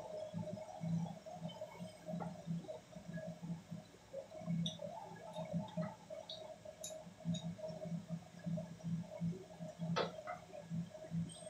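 A few light clicks and knocks from hand work on the parts of a ceiling-mounted air-conditioner unit, the clearest about ten seconds in, over a low uneven hum.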